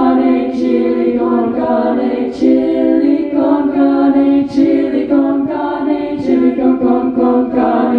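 Small female vocal ensemble singing a cappella in close harmony: held chords that shift every second or so, with crisp consonants cutting through about every two seconds.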